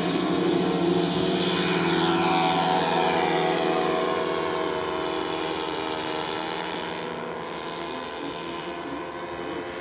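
Radio-controlled model airplane's engine running as the plane takes off and climbs away; its pitch slides down as it passes and the sound fades as it flies off.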